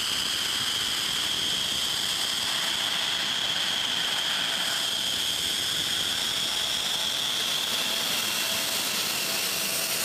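F-16 fighter's jet engine running at taxi power: a loud, steady high whine over a rushing hiss as the jet taxis past.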